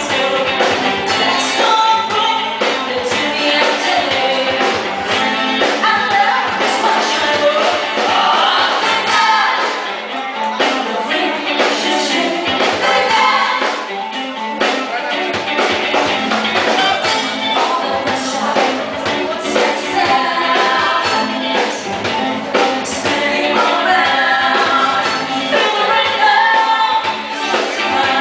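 Live band music with a woman singing lead through a microphone over drums and percussion. The recording sounds thin, with very little bass.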